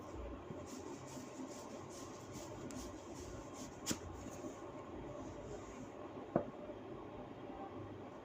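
Hands rubbing and scratching through long hair in a head massage, a steady scratchy rustle, with two sharp cracks about four and six seconds in.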